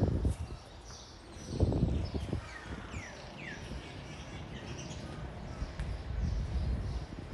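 Birds chirping, with several quick downward-sweeping calls about three seconds in. Two louder low rumbling bursts, one at the very start and one about two seconds in.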